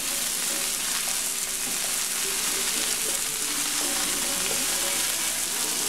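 Salmon fillets sizzling steadily as they fry in hot oil in a wok, nearly cooked through.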